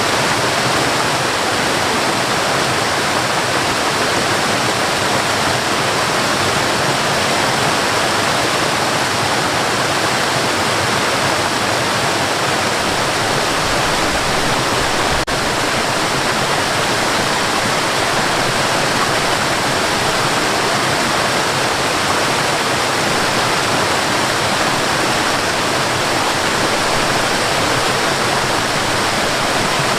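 Steady rushing of a waterfall and river, an even loud roar of falling water.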